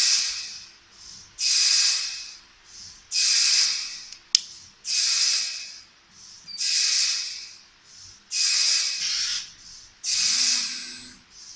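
Bursts of compressed-air hiss, seven of them about every 1.7 seconds, each starting sharply and fading over about a second, typical of a pneumatic valve exhausting. A single sharp click comes a little after four seconds in.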